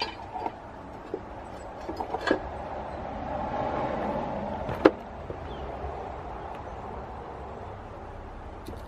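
Steel crucible tongs clinking against a crucible as it is lifted and lowered into a furnace, with a few light knocks and one sharp click about five seconds in. A steady background hiss swells in the middle.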